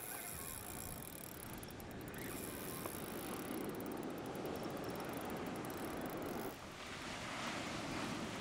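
Shimano Stella spinning reel ticking steadily as it is worked against a hooked fish, with surf washing in behind. Near the end it gives way to louder breaking surf.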